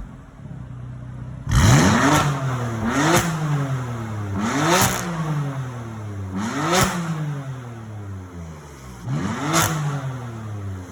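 BMW S55 twin-turbo 3.0-litre straight-six with an aftermarket exhaust, free-revved five times: each blip rises sharply in pitch and falls back slowly to idle.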